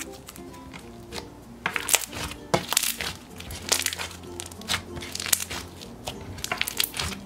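Thick slime packed with foam beads being squeezed and pressed by hand: a dense run of sharp pops and crackles from the beads and trapped air bubbles, starting about a second and a half in.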